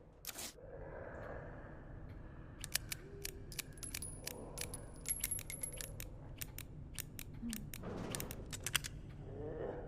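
Revolver being handled before firing: an irregular series of sharp mechanical clicks, around twenty of them, as the action is worked.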